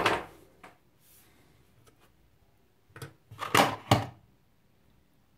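Small hard objects clicking and knocking on a wooden desk as tools and the parts of a Fitbit Charge HR are handled: a knock at the start, a couple of faint ticks, then a quick cluster of sharp knocks about three and a half seconds in.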